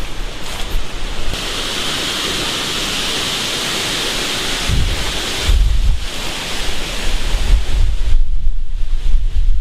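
Storm wind with a steady rushing hiss for the first half, then gusts buffeting the microphone with a low, uneven rumble from about halfway through.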